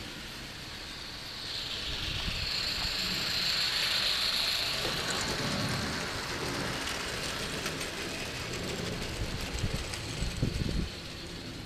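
Gauge 1 live-steam model train passing close by. A hiss rises and fades, then the coaches and wagons roll past with a rattling clatter of wheels on the track. Near the end come a run of sharp clicks, and then the noise cuts off abruptly.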